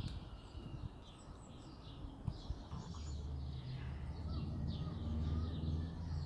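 Small birds chirping and singing in quick repeated notes, with a low steady hum coming in about three seconds in.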